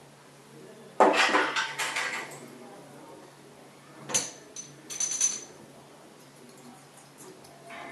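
Metal parts of a chrome thermostatic shower mixer clattering and clinking as they are handled on a table. A loud rattle comes about a second in, then sharp clinks with a short ringing tone around four seconds and again just after five.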